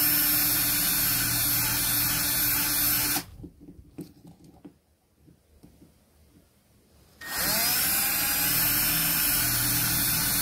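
Cordless drill running with a bit boring out the rivet on the base of a die-cast toy car. It runs steadily, stops about three seconds in, leaving a few light clicks, then starts up again about seven seconds in and keeps drilling.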